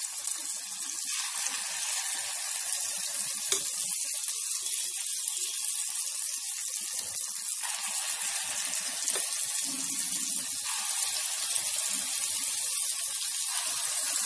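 Moong dal vada batter deep-frying in a pan of hot oil: a steady hiss and crackle of sizzling oil, growing slightly louder. One sharp click about three and a half seconds in.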